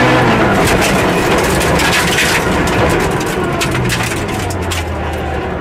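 Rally car heard from inside the cabin on a gravel road. The high engine note cuts away at once as the driver comes off the throttle, leaving road noise and many sharp ticks of gravel against the car. A low, steady engine hum comes back about four seconds in.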